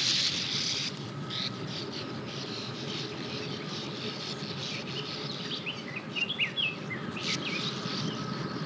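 Sand martins calling over their burrow colony: short, scratchy twittering chirps scattered through, most of them near the end, over a steady background. A high hiss fills the first second.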